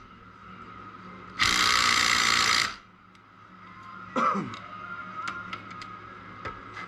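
A cordless power driver runs once for just over a second, spinning a small bolt in. Small tool clicks and handling knocks follow.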